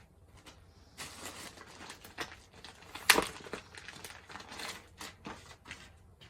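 Rustling and crinkling from clothes being handled, in uneven bursts with small clicks, and one sharp click about three seconds in that is the loudest sound.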